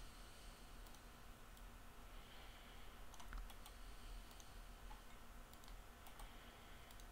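Faint, scattered clicks of a computer keyboard and mouse, a few at a time and bunched about halfway through, over a low steady hum.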